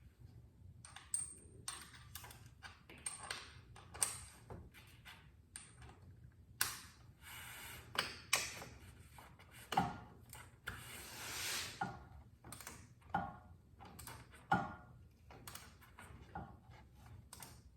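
Metal hand tools clicking and clinking at irregular intervals, some knocks ringing briefly: a socket, extension and torque wrench being handled while torquing bolts on a motorcycle. A brief scraping rub comes about eleven seconds in.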